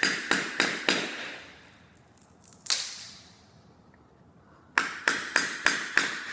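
Claw hammer striking a flat-blade tool, driving it through the tongue and groove between hardwood floor boards to free a damaged board. Four quick sharp taps, one more a moment later, a pause, then another run of five taps near the end.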